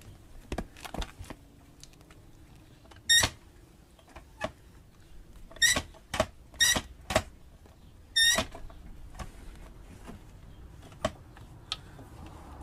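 Hand tools clinking and knocking against metal engine parts: about six sharp, ringing metallic clinks between roughly three and eight and a half seconds in, the middle four in quick succession, with lighter taps and knocks around them.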